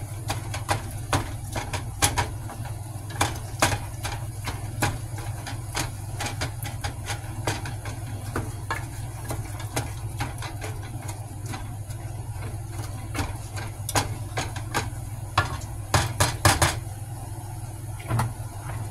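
A cooking utensil knocking and scraping against a pot as food is stirred: a string of irregular sharp clicks and knocks over a steady low hum, with a quick run of louder knocks near the end.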